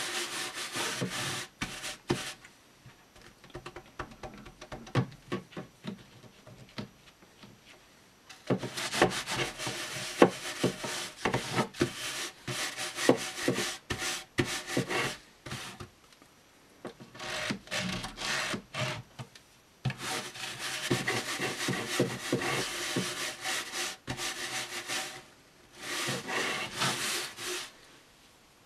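A light bristle brush scrubbing quickly back and forth over fabric speaker grille cloth, working in liquid shoe polish. The strokes come in bouts, with a long pause a couple of seconds in and shorter breaks later.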